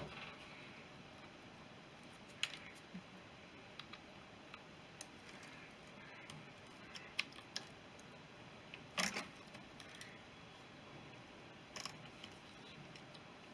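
Scattered light clicks and taps of small metal parts and hand tools being handled during clutch assembly, with a louder clatter about nine seconds in and another near the end.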